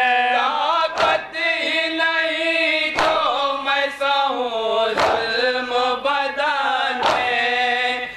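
A group of men sings an Urdu noha in unison, drawing out long held notes. Sharp chest-beating strikes (matam) land about every two seconds.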